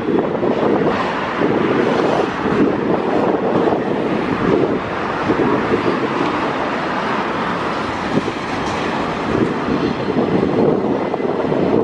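Double-stack container train's freight cars rolling past below, a steady wheel-on-rail rumble.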